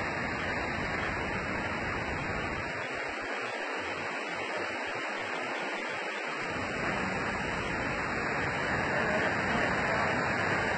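Steady rushing noise of storm wind, with no distinct events; it grows slightly louder in the second half.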